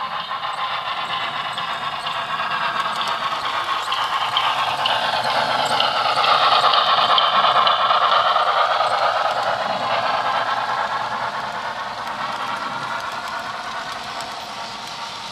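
Model freight train's wheels rolling and clattering along the track, a steady rumble that grows louder as the cars pass closest about halfway through, then fades as the train moves away.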